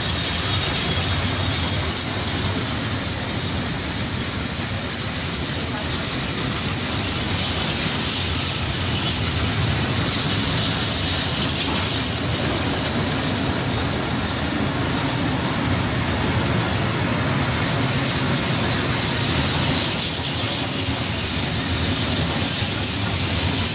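A train of open freight wagons rolling past close alongside: a steady rumble of steel wheels on rail with a continuous high-pitched hiss over it.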